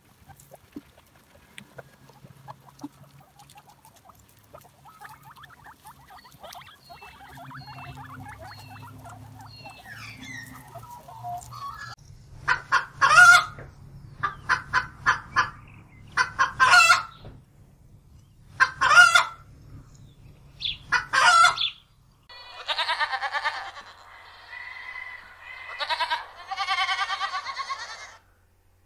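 Chickens clucking, faint at first, then loud short calls repeated from about halfway through. After a sudden change near the end come a few longer drawn-out calls.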